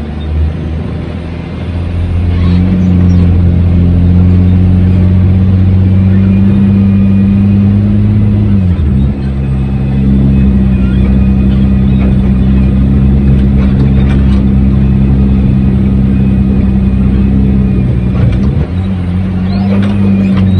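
Dump truck's engine running hard at a steady high speed, its pitch briefly sagging and recovering three times: near the start, about halfway through, and near the end.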